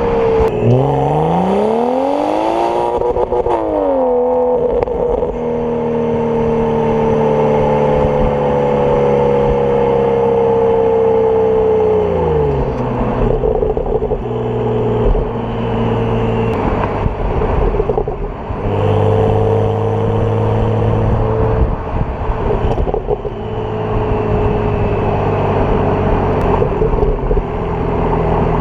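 BMW N55 turbocharged straight-six running through a catless downpipe. The revs climb steeply about a second in and fall back, then the engine holds steadier tones that slowly sink, with a marked drop about twelve seconds in and more steady running after.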